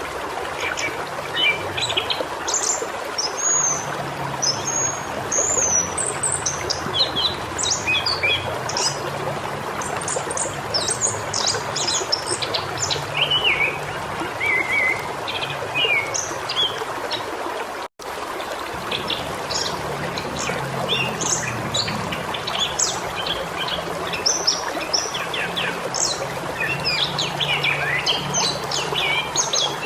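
Many small birds chirping and whistling over the steady rush of flowing water. The sound cuts out for an instant just past the halfway point.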